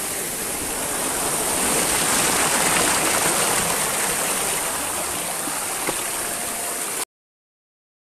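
Waterfall water rushing and splashing over rocks, a steady rush that swells slightly a couple of seconds in and cuts off suddenly about seven seconds in.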